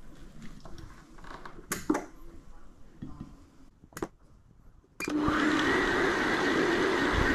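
A few clicks and knocks as a meat-grinder attachment is fitted onto a stand mixer. About five seconds in, the mixer's motor switches on abruptly and runs the grinder steadily, with a constant hum and a high whine.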